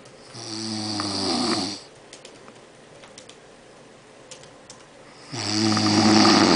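A man snoring loudly: two long snores about five seconds apart, each lasting about a second and a half.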